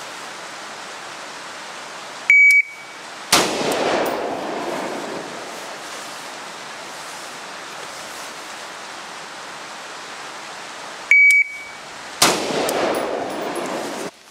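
Shot timer's start beep followed about a second later by a single shot from a 13.5-inch-barrelled AR-15 rifle, with a tail of echo; the beep-then-shot sequence happens twice, the second about nine seconds after the first, over a steady hiss of rain.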